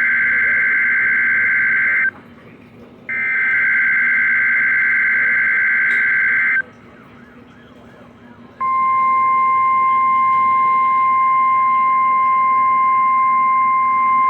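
NOAA Weather Radio test signal. The end of one SAME digital header burst, then about a second later a second buzzy data burst lasting about three and a half seconds. After a two-second gap, the steady single-pitch warning alarm tone starts and holds.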